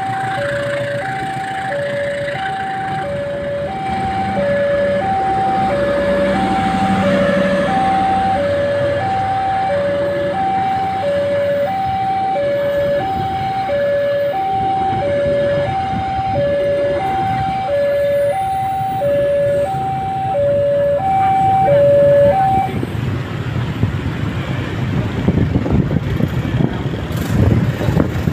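Two-tone railway level-crossing alarm alternating a high and a low note about once a second, over the rumble of passenger coaches rolling past on the rails. The alarm stops about 22 seconds in, once the train has gone by.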